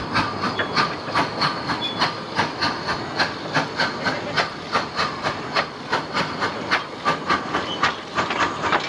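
Miniature ride-on steam locomotive chuffing past at a quick, even beat of about four to five exhaust beats a second, with steam hiss.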